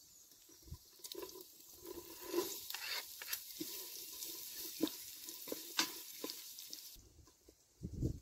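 Diced carrot scraped with a wooden spoon from a wooden cutting board into a hot steel pot, sizzling in the fat, with the spoon scraping and knocking as it stirs. The sizzle starts about a second in and stops near the end.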